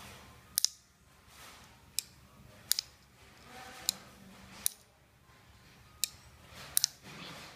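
Sharp, irregular clicks from a spring-assist folding knife being worked in the hand, about ten in all, several coming in quick pairs.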